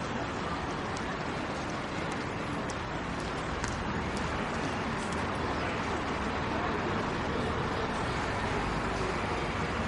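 Metro station ambience: a steady low rumble mixed with indistinct crowd voices, with a few faint clicks.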